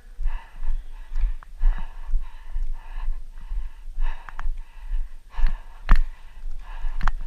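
Hard, rapid breathing close to the microphone, noisy puffs about twice a second, with low thumps underneath and a couple of sharp clicks near the end.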